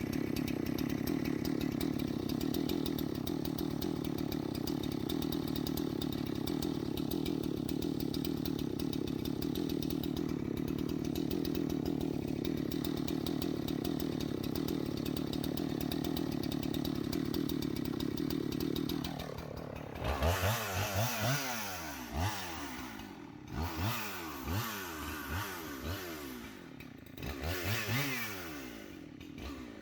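Husqvarna 371 XP two-stroke chainsaw held at a steady high speed for about nineteen seconds while cutting through the trunk. It is then revved up and down in about six short bursts, its pitch rising and falling each time.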